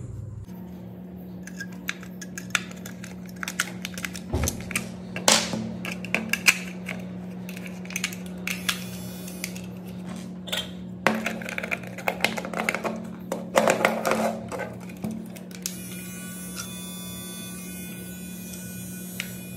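Plastic clicks, taps and rattles as AA rechargeable batteries are fitted into a toy warship's battery compartment and the plastic hull is handled, over a faint steady hum.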